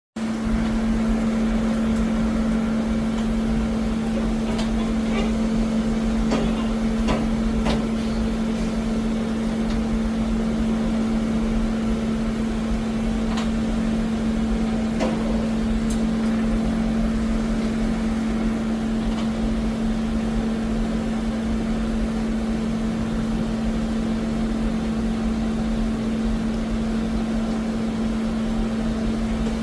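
Doosan Puma 400C CNC lathe running under power: a steady machine hum with one strong unchanging tone. A few light clicks and knocks come through it in the first half.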